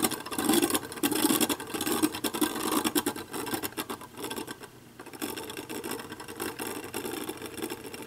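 Beyblade Burst Obelisk Odin Triple Extreme spinning on the stadium floor on its new, not yet worn-in Extreme driver, a dense scratchy whir. It grows quieter about halfway through as the top loses speed and starts to wobble.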